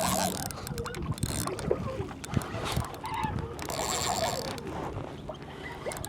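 Fishing reel clicking and ratcheting as line is cranked in on a hooked, fast-running fish from a kayak, with water sloshing against the hull.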